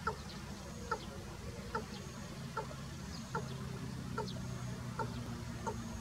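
Male watercock calling: a steady series of short, clucking notes, repeated a little more than once a second.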